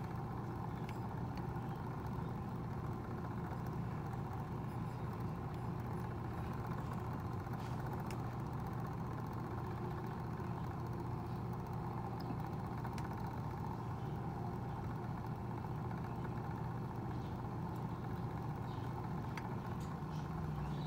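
Small electric motor of a cup turner humming steadily as it spins a mug on its spindle.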